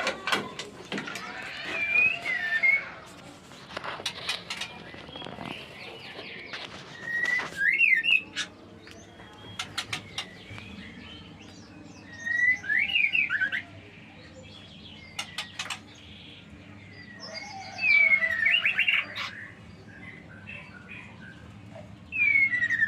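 Six-day-old white-rumped shama chicks calling in short bursts of high, sliding chirps about every five seconds, with scattered sharp clicks between the bursts.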